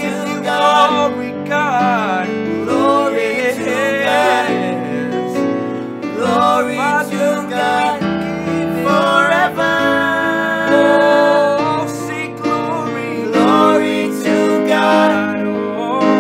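A woman and two men singing a Christmas carol together over acoustic guitar accompaniment, with long sung lines that glide in pitch over steady chords.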